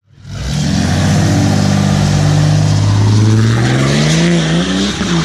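Diesel pickup truck's engine under hard acceleration, loud, its note climbing steadily for several seconds and wavering slightly near the end.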